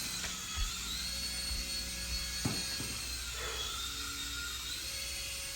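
Small remote-control helicopter in flight: the steady high whine of its electric rotor motors, which dips in pitch twice and climbs back.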